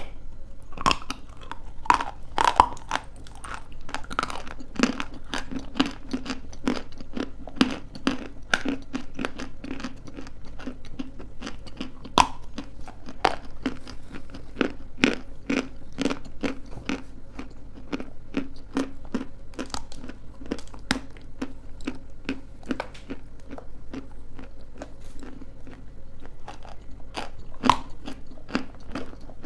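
Close-miked crunching and chewing of hard, chalky pieces of edible clay, many irregular crisp snaps over a low steady hum.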